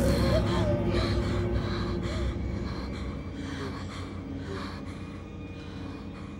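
Frightened, rapid gasping breaths, about two a second, slowly fading over a low rumble.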